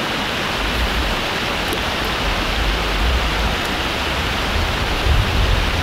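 Steady rush of flowing creek water, with a low, uneven rumble coming and going underneath.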